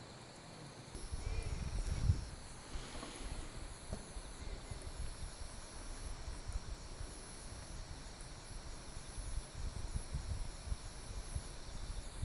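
Insects chirring steadily, with a low, uneven rumble underneath from about a second in.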